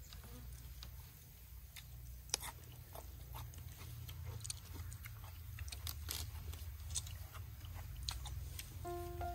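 A person eating: chewing, with scattered small clicks and crinkles as chopsticks and lettuce leaves are handled, over a steady low rumble.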